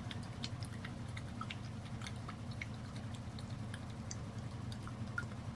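A pet chewing: many soft, irregular little clicks of its mouth working, over a steady low hum.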